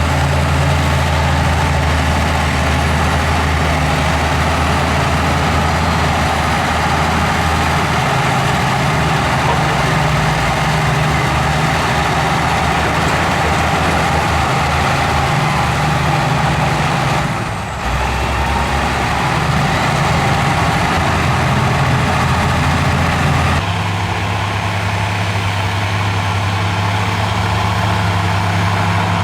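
Heavy diesel engine of earthmoving machinery running steadily at work. Its note changes abruptly twice: a short dip about eighteen seconds in, and a different low engine tone from about six seconds before the end.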